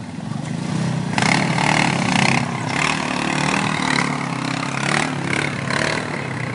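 ATV engine running and revving, its pitch shifting. A louder rushing noise joins about a second in.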